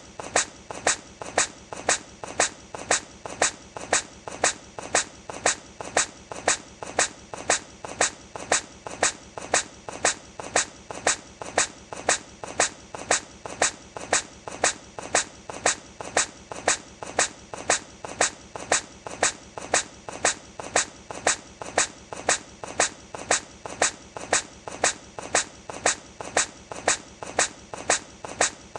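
A hedgehog sneezing: a short, sharp, hissing sneeze repeated over and over at an even pace, more than once a second, as a loop.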